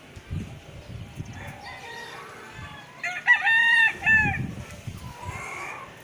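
Rooster crowing: one loud crow in several linked parts about three seconds in, with fainter crowing before and after it and a few low thuds.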